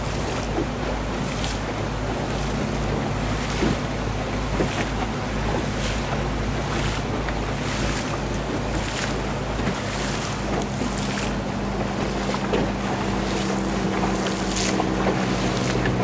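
Motorboat running steadily under way, its engine's low tone shifting slightly about two-thirds of the way through, with wind buffeting the microphone and water splashing against the hull about once a second.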